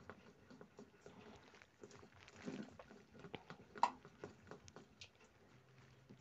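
A spoon stirring thick flour batter in a steel bowl: faint wet squelching with irregular light clicks of the spoon against the bowl, the sharpest about four seconds in.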